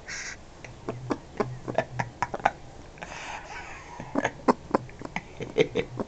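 Scarlet macaw close to the microphone making two runs of quick, sharp beak and tongue clicks, with a short low grumbling note between the first clicks.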